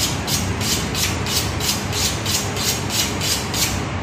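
Kitchen knife being honed on a sharpening steel: quick, even metal-on-metal scraping strokes, about three a second, stopping shortly before the end.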